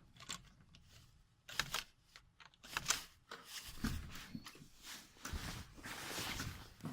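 Handling noise in a small room: rustling with scattered clicks and taps, and a longer rustle about six seconds in.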